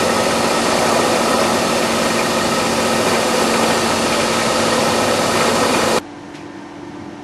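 A car engine running, heard as a loud steady rushing noise over a low hum. About six seconds in it cuts off suddenly, leaving a much quieter hum.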